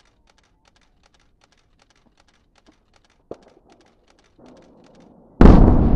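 Faint, even ticking about two or three times a second, then, about five seconds in, a sudden loud boom from the explosive charges bringing down a concrete power-station chimney, fading slowly.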